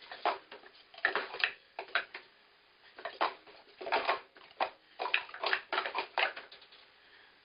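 Plastic sport-stacking cups clacking as they are stacked and unstacked: quick clusters of sharp clacks with short pauses between them.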